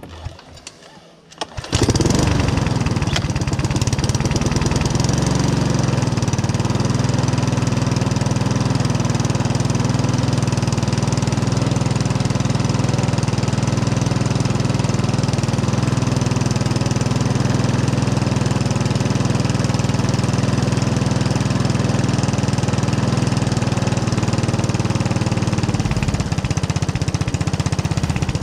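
Mountfield self-propelled lawnmower's petrol engine pull-started, catching about two seconds in and then running steadily without hunting.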